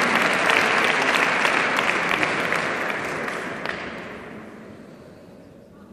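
Audience applauding, the clapping dying away over about four seconds.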